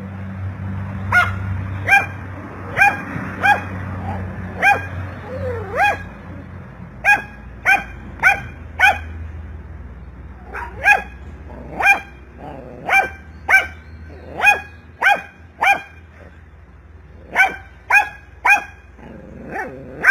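A dog barking repeatedly in short, sharp single barks, often two or three in quick succession, while it goes after a lizard.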